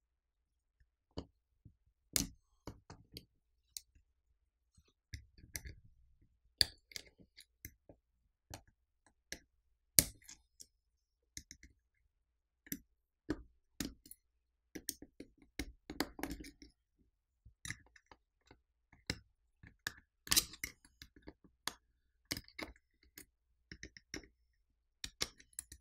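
Irregular small clicks and taps of a metal pry tool working on a smartphone's internals as thin wire cable connectors are popped off the board, with short quiet gaps between. A sharper click comes about ten seconds in and another about twenty seconds in.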